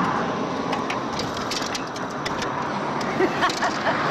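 Wheel nuts and a steel wheel brace clinking in a series of short, light metallic clicks, in two clusters, over a steady background rumble.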